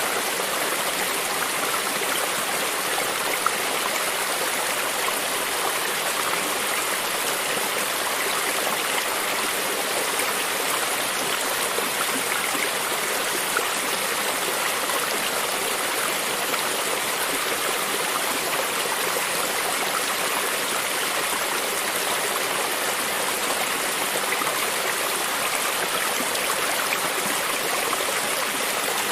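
Stream water running over rocks, a steady rush with small splashes and gurgles.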